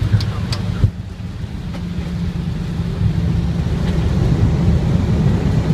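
Low, steady rumble inside an Airbus A321's cockpit as the airliner rolls along the runway after touchdown, slowly growing louder, with a few light clicks in the first two seconds.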